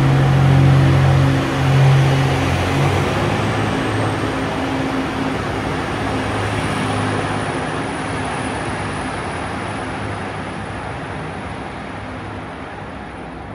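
JR Hokkaido H100 'DECMO' diesel-electric railcar pulling out of the station. Its engine hums loudly for the first few seconds, then the running noise fades steadily as the train moves away, with a faint high whine from about three seconds in.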